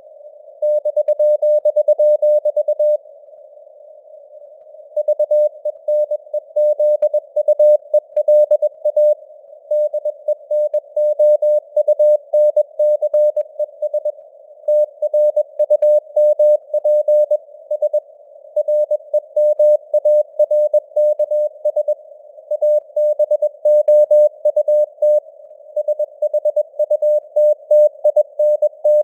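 Morse code (CW) sent at 21 words per minute as a single mid-pitched tone keyed on and off in quick dots and dashes, over a narrow band of simulated radio receiver hiss. About three seconds in the keying stops for roughly two seconds, then resumes.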